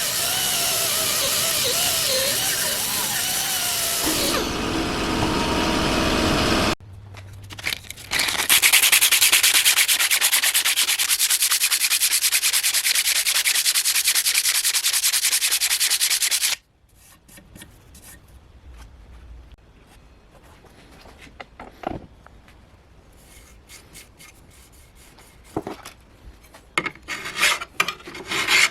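Sanding and rubbing, in separate stretches with sudden cuts between them: a steady stretch at first, a long, louder steady stretch in the middle, then quieter handling with small clicks, and back-and-forth rubbing strokes near the end.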